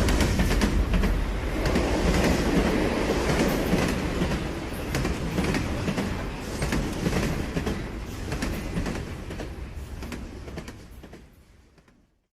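A train rolling along the rails, its wheels clicking over the rail joints, growing steadily fainter and fading out near the end.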